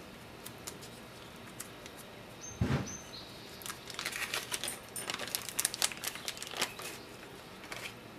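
Small clear plastic parts bag crinkling and rustling as it is handled, with one thump a little under three seconds in and a busier run of crinkling from about four to seven seconds.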